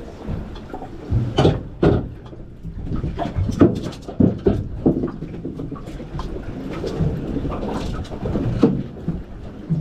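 Irregular knocks and thumps on a small fishing boat, over a steady low rumble.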